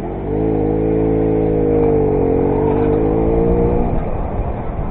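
Derbi Variant two-stroke moped engine revving under throttle, holding a high, nearly steady note for about three and a half seconds before it backs off near the end.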